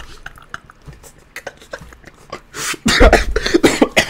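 A man laughing hard: short breathy puffs at first, then a loud burst of laughter about three seconds in, with a low thump at its start as he covers his mouth.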